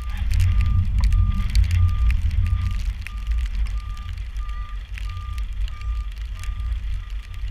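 A vehicle's reversing alarm beeping steadily, a single tone about three times every two seconds, over heavy wind rumble on the microphone in rain.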